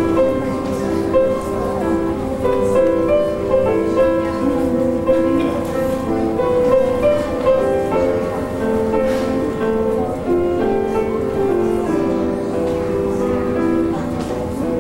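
Grand piano playing a melody over held chords, at a steady moderate loudness.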